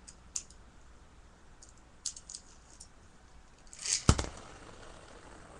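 Sharp plastic clicks from a Beyblade ripcord launcher as the toothed ripcord is threaded in, then the ripcord is yanked with a quick zip about four seconds in and the Beyblade lands with a loud smack on a plastic bin lid, leaving a faint steady hiss as it spins.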